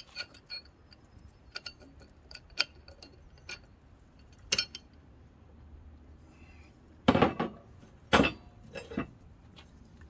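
Loose steel parts of a manual tire changer being handled and fitted together: scattered light clinks and taps, with two louder metal clanks about a second apart near the end.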